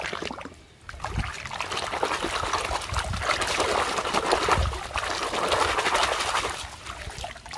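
Water splashing and sloshing in a basin as a toy bus is scrubbed by hand under the muddy water. There is a short splash at the start, then steady churning from about a second in that dies away near the end.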